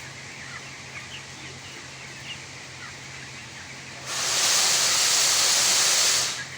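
Chicks peeping faintly over a steady low hum, then a loud hiss starts about four seconds in, runs for about two seconds and stops.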